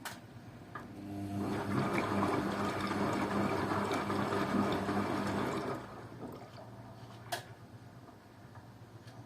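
Beko washing machine on a synthetics 50 °C programme, water rushing through it with a steady hum for about four and a half seconds, then dropping back to a quieter machine sound with a sharp click.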